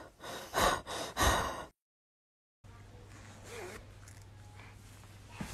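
A few short, breathy gasps from a person, the loudest two about half a second apart. The sound then cuts out completely and gives way to a faint low hum.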